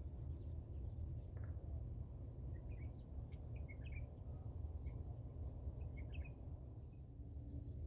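Small birds chirping in short, scattered calls, in two loose clusters, over a steady low rumble.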